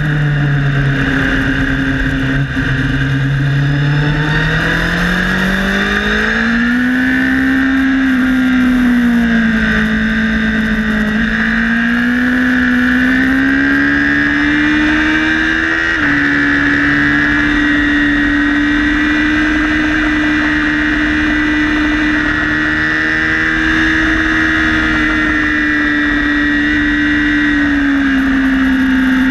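Honda CBR1000RR sport bike's inline-four engine running hard on track, with wind rush. The engine note sinks at first, then climbs, dips and climbs again through the corners. About halfway through there is a sudden drop in pitch at an upshift, after which the engine holds a high, steady note down the straight.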